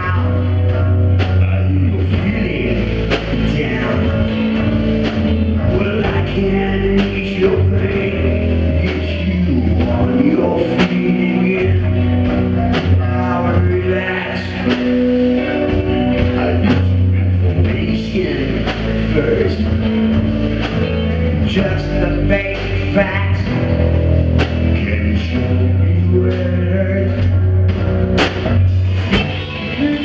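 Live rock band playing: electric guitars and bass notes over a drum kit, with frequent cymbal and drum hits.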